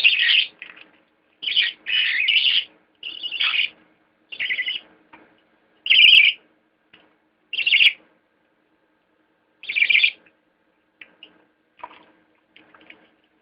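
Young budgerigar chicks calling: a string of short loud calls every second or two, giving way to a few soft chirps near the end.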